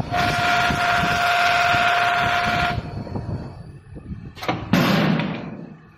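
Automatic wood handle sanding machine, its abrasive wheel grinding against a spinning wooden handle: a loud hiss with a steady whine that cuts off suddenly after about two and a half seconds. A second, shorter burst of hiss comes about a second before the end.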